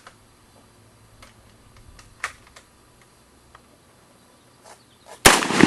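A few faint clicks while a semi-automatic rifle is readied, then a single loud rifle shot about five seconds in, ringing on after it.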